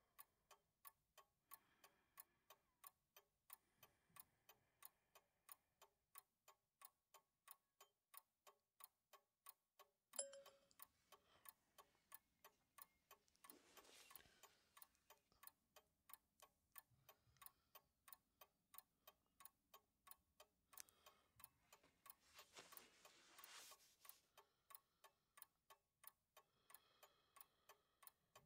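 A clock ticking faintly and steadily in a quiet room, with one sharper click about a third of the way in and two soft rustling swells later on.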